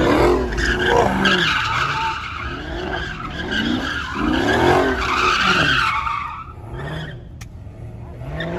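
A car engine revving up and down again and again, with tyres screeching throughout, as in a burnout or donuts; it dies down about six seconds in.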